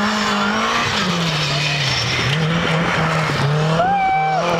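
Ford Escort Mk2 rally car's engine working on a gravel stage, the revs dropping for a bend and then climbing again as it is driven sideways through it, with gravel noise from the sliding tyres. A brief higher held tone sounds about four seconds in.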